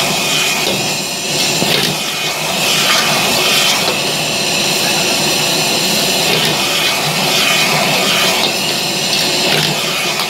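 Restaurant gas wok burner running on a high flame, with food sizzling in the wok and a metal ladle scraping and stirring it.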